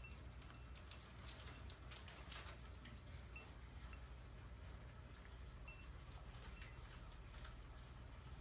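Cat eating wet food from a ceramic bowl: faint wet clicks of lapping and chewing. Now and then there is a small ringing clink as its mouth touches the bowl.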